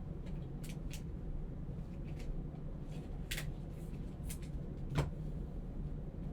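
Light clicks and taps of trading cards and their holders being handled on a table, over a low steady hum, with one sharper tap about five seconds in.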